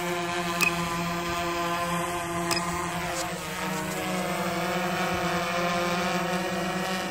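DJI Phantom 3 Professional quadcopter's four motors and propellers whining in flight, a steady buzz of several stacked tones. The pitch sags slightly about three to four seconds in, then comes back up, as the motors adjust.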